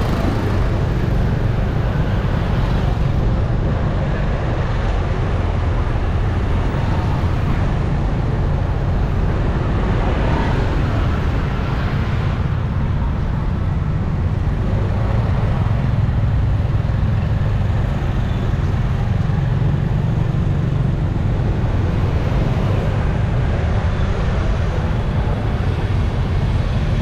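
Steady city street traffic noise, a continuous low rumble of passing vehicles.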